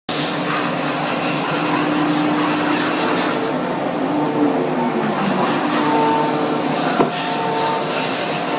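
Citizen L20 Type VII CNC Swiss-type lathe running: a steady hiss of coolant and air over hums that switch on and off. The high hiss drops away for a second or so about three and a half seconds in, a tone falls in pitch around five seconds, and there is one sharp click near seven seconds.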